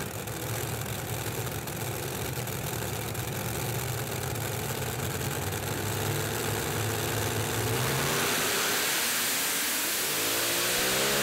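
Engines of a multi-engine Heavy Modified pulling tractor running at idle with a steady low hum. About ten seconds in they rev up hard, pitch climbing quickly to a steady high note, as the tractor launches at full power.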